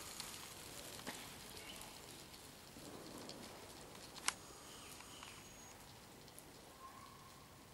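Faint wet-street ambience: a steady low hiss with scattered small ticks, one sharp click a little past the middle, and a gradual fade.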